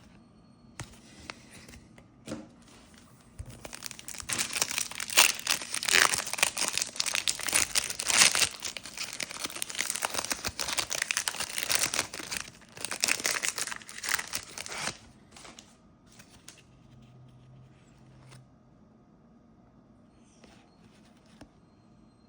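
A trading card pack's wrapper being torn open and crinkled: a dense crackling from about three seconds in that stops at about fifteen seconds, followed by faint scattered handling clicks.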